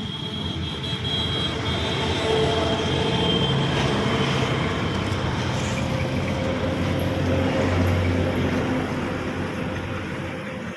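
Passing motor-vehicle traffic: engine and road noise that swells through the middle and fades near the end, with a few steady whining tones over it.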